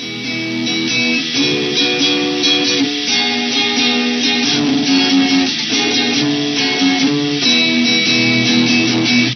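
Intro music led by guitar, with sustained chords and notes, cutting off abruptly at the end.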